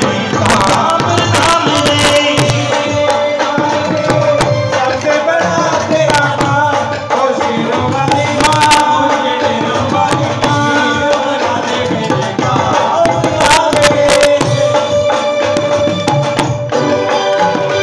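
Live Hindu devotional jagrata music, with steady hand-drum strokes over a sustained electronic keyboard melody.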